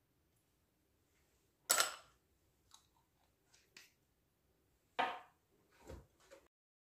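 A few sharp clicks and light knocks of kitchen things handled on a countertop: a small bottle and measuring spoon put down, and an electric hand mixer picked up, its motor not running. The loudest click comes about two seconds in, another about five seconds in, with faint ticks between.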